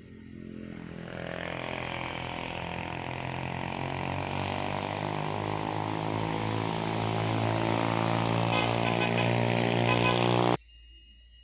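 A motor vehicle engine running steadily and growing louder as it approaches, then cut off abruptly near the end.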